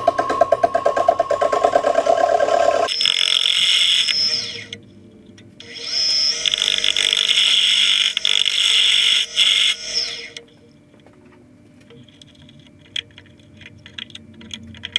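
Narrow lathe tool cutting a groove in a spinning barn-beam blank on a Powermatic wood lathe: first a rhythmic chatter, then two long bursts of high scraping screech with a short gap between, as the cut meets a buried nail. After that the cutting stops, leaving a low hum and small scattered clicks and scrapes as the nail is worked out by hand.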